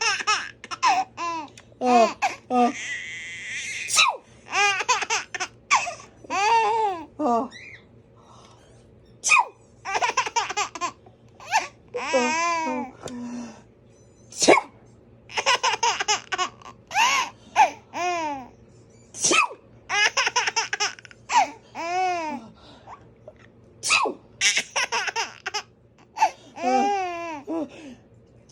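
A baby laughing in repeated bursts of giggles and belly laughs with short pauses between them, set off by an adult's fake sneezes.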